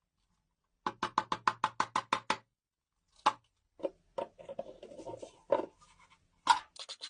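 A quick run of about ten sharp clicks, roughly seven a second, then scattered knocks and light rubbing, with another fast run of clicks near the end. The sound is small hard parts being worked by hand.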